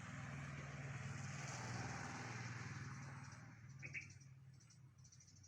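A motor vehicle engine passes by, its sound swelling then fading away over a few seconds. There is a short high chirp about four seconds in.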